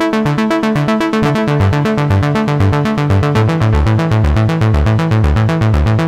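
GForce impOSCar3 software synthesizer playing a sequenced patch: a fast, even pulse of short synth notes over a bass line that steps between pitches. The pattern stops near the end.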